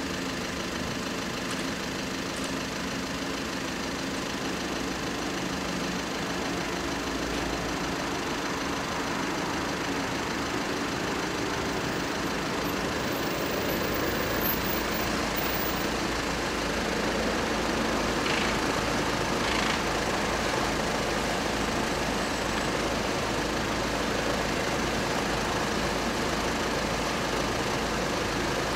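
Steady engine running, with a deeper hum joining about halfway and the sound growing slightly louder.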